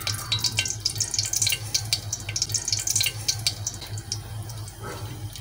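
Fenugreek seeds sizzling in hot oil in a pan, a dense irregular crackle of small pops, with a low steady hum underneath.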